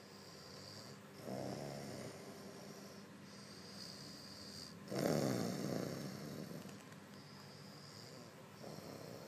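A sleeping person snoring: three snores about four seconds apart, the middle one the loudest and longest.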